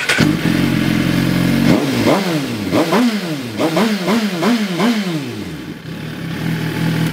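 2017 Suzuki GSX-R1000's inline-four engine idling, then blipped quickly about six times from about two seconds in before settling back to idle. Its exhaust valve cable has just been tightened to stop an exhaust rattle, and the owner says only a very minor rattle is left.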